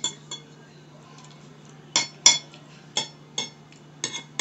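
Metal spoon clinking and scraping against a bowl while scooping food: about eight sharp clinks, mostly in pairs, with a quiet gap of about a second and a half after the first two. A faint steady low hum runs underneath.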